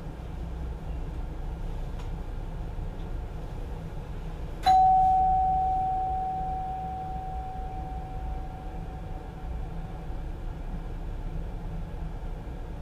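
A single bell chime rings in the cab of an NS Mat '64 electric train about five seconds in, one clear tone that fades away over about five seconds. Under it is the steady low rumble of the train running.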